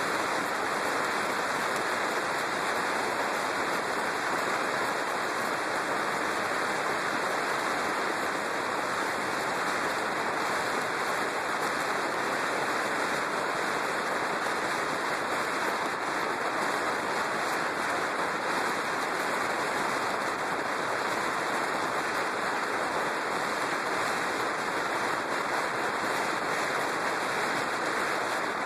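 Steady rushing wind noise over the microphone of a camera mounted on a moving motorcycle, with no distinct engine note.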